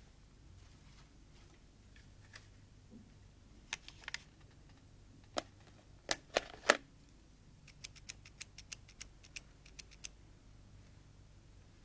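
Scattered light knocks and clicks in a quiet room, then a quick run of about eight light clicks, like telephone keys being pressed to dial.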